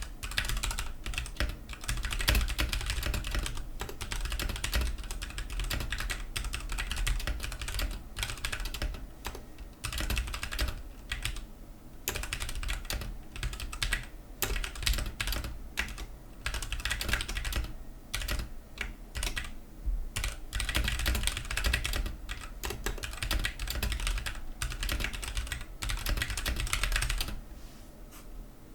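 Fast continuous typing on a Ducky One 2 Mini mechanical keyboard with linear Cherry MX Silver switches, the key clicks running in quick bursts with brief pauses, muffled slightly by the mousepad under the board. The typing stops about a second before the end.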